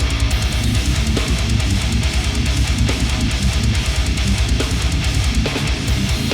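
Loud, harsh heavy music: distorted electric guitar over a thick low end that pulses rapidly throughout.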